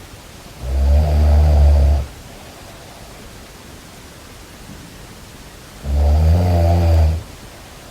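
Snoring: two loud snores about five seconds apart, each lasting over a second.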